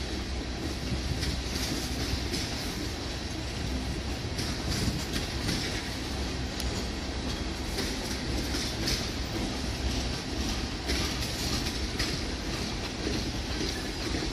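Freight train tank cars rolling past at speed: a steady rumble of steel wheels on rail with a running clickety-clack of wheels over the rail joints.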